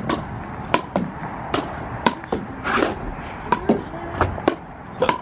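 Pickleball rally: paddles striking the hard plastic ball back and forth, a series of sharp pocks about every half second.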